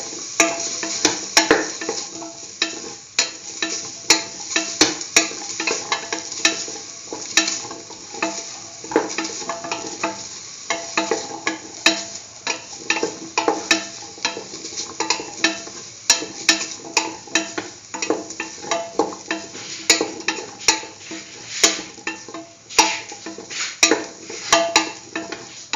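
Chicken and potato pieces being stirred in a frying pan: a cooking utensil clicks and scrapes against the pan several times a second over a steady sizzle of frying.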